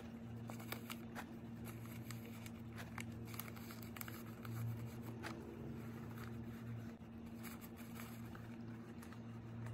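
Faint rustling and crinkling of tissue and paper being handled and stuffed into a taped paper pouch, with scattered light clicks over a steady low hum.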